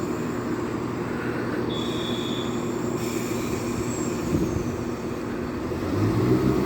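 Class 171 Turbostar diesel multiple unit's underfloor diesel engines running as the train pulls away, the engine note growing louder near the end. A short high beep sounds about two seconds in.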